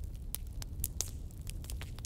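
Wood fire crackling: irregular sharp pops and snaps, a few stronger ones about a second in, over a steady low rumble of the burning.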